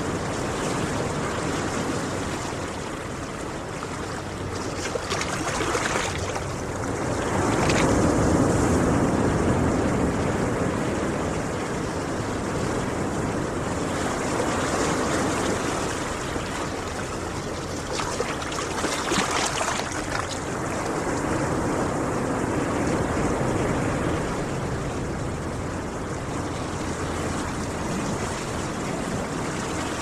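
Ocean surf on a beach: a continuous rush of waves breaking and washing in, swelling louder as each wave comes in, most strongly about eight seconds in and again about nineteen seconds in.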